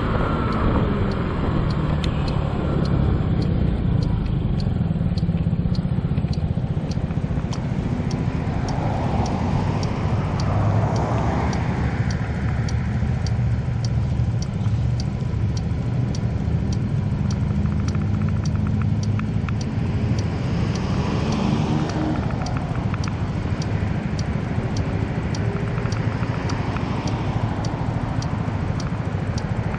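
A 2007 Honda Ruckus scooter's 49cc four-stroke engine running under way with a steady low rumble. Its pitch rises and falls a few times as the throttle and speed change.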